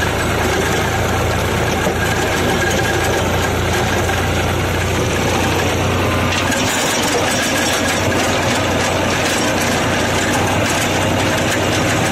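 New Holland 3600-2 tractor's diesel engine running steadily under load, heard from the driver's seat, while the rotavator behind it churns through dry, cloddy soil. The tractor has been modified, so its engine sounds different from a stock 3600-2.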